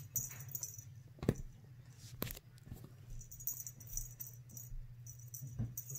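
Kittens scuffling as they play on a quilted mattress: faint rustling with two sharp taps, about one and two seconds in, over a steady low hum.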